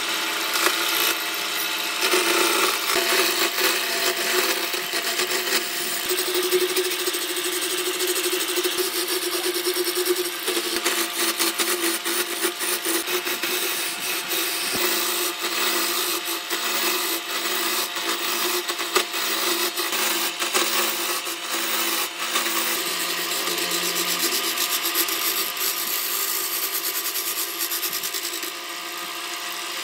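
Wood lathe spinning a long wooden spindle while a turning tool cuts along it: a steady scraping hiss of the tool on the spinning wood, over the lathe motor's hum, with a patter of small ticks. It starts abruptly and eases a little near the end.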